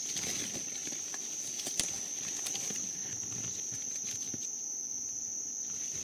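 A steady, high-pitched insect trill with no break. Over it, in the first few seconds, coffee-tree leaves rustle and a few light clicks sound as a hand moves the branches.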